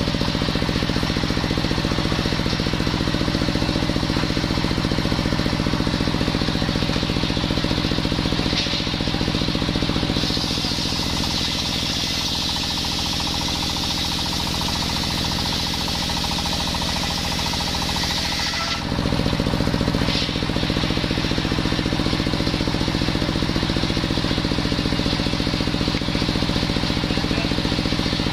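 Belt-driven circular saw bench powered by a stationary engine, running steadily while its large blade rips a coconut log lengthwise into beams. A brighter hiss of the blade cutting through the wood rises about a third of the way in and stops after about two-thirds, with a brief dip in the engine's sound, after which the blade spins on.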